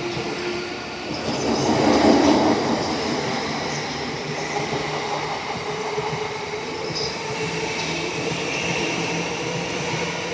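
JR commuter electric train moving along a station platform, its motors whining steadily over rolling wheel noise. It is loudest about two seconds in.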